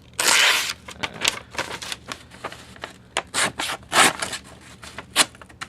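Freshly ground tanto knife edge making test slices, a short rushing slice about a quarter second in followed by a run of irregular sharp crackling snicks. The edge still carries its burr from the belt grinder.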